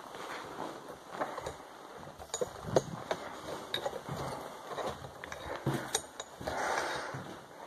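Footsteps across a floor littered with debris, with irregular small clicks, knocks and clinks of hard bits underfoot, and a soft rushing noise near the end.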